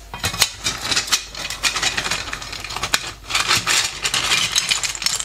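Cooked banded dye-murex (cañaílla) shells clattering against each other and the steel pot as they are scooped with a metal spoon: a dense run of sharp clicks and rattles, with a short pause about three seconds in.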